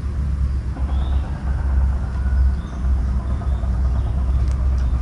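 Steady low rumble, rising and falling in strength, with a few faint high chirps now and then.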